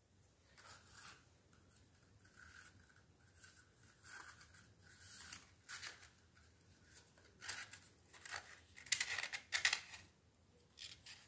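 Faint rustling and crinkling of paper as a rolled paper scroll is lifted out of a tissue-lined gift box and unrolled, with a cluster of louder rustles about nine to ten seconds in.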